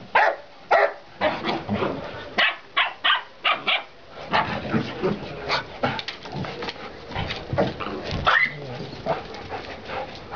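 Dogs barking during rough play: a rapid run of sharp barks for the first four seconds, then a busier, quieter stretch of play noise with a few louder barks about five and a half and eight seconds in.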